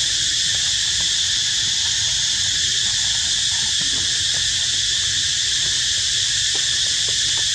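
Steady, unbroken insect chorus, high-pitched and dense, with a low rumble underneath and a few faint ticks.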